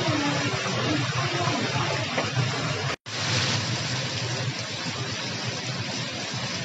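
Hot oil sizzling and bubbling steadily around a batch of chicken pieces in a commercial deep fryer. The sound breaks off for an instant about three seconds in, then goes on the same.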